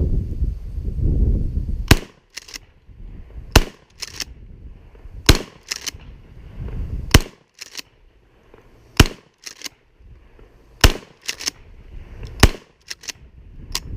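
Mossberg 500 pump-action 12-gauge shotgun firing 00 buckshot, seven shots about every one and three-quarter seconds starting about two seconds in, each shot followed by two quick clacks of the pump being racked back and forward.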